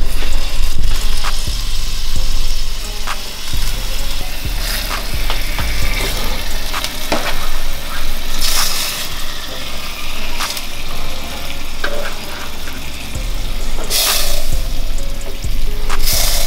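Oxtail pieces sizzling in hot oil in a stainless steel skillet as more pieces are laid in, the sizzle flaring louder a few times. Background music plays under it.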